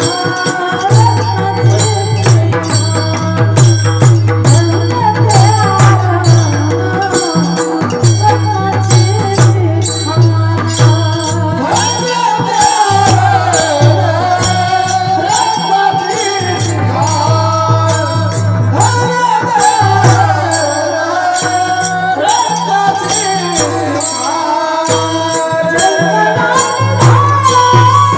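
Mridang (two-headed barrel drum) played in a fast steady rhythm, its deep resonant bass strokes under small hand cymbals striking on the beats, with a voice singing a gliding devotional melody over them.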